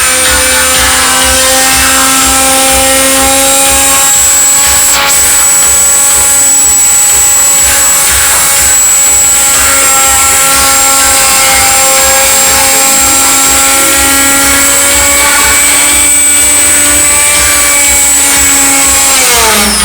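Copy-milling machine's spindle motor running at a steady high speed with a constant whine, then spinning down with a falling pitch at the very end.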